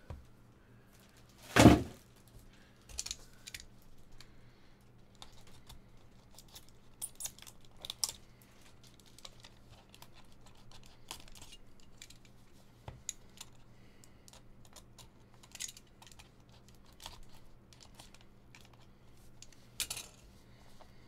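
Hands handling a cardboard trading-card box: a loud thump about two seconds in, then scattered small clicks, scrapes and tearing as a box cutter slits the tape on the white card box.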